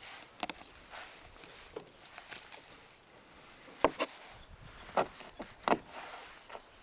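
Large kitchen knife chopping raw poultry and knocking on a wooden cutting board: irregular sharp knocks, the loudest a quick pair about four seconds in and single knocks near five and six seconds.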